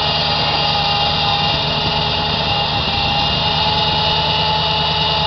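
Off-road trial buggy's engine running at steady high revs, stepping up a little in loudness at the start, with a steady high whine over it.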